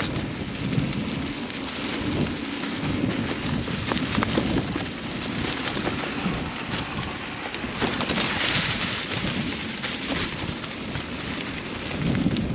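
Wind buffeting the microphone as a mountain bike rolls along a dirt trail, with scattered clicks and rattles from the bike.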